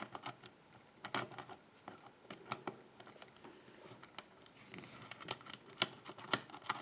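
Irregular metal clicks of a hook pick working the spool pins of a six-pin pin-tumbler challenge lock under tension, as the picker works to re-set the pins.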